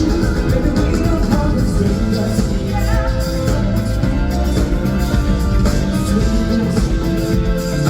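Live pop-rock concert music over a hall's sound system, the band playing a loud, steady instrumental stretch of the song with some singing.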